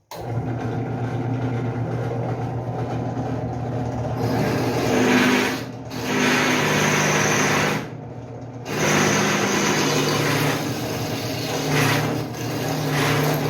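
FG009 benchtop drill press running, with a steady motor hum, as a 6 mm bit cuts through a 2 mm steel bar in several pushes of a few seconds, with short easings between them and a high squeal during some. It is very noisy because the glass-topped table it stands on rattles and adds to the sound.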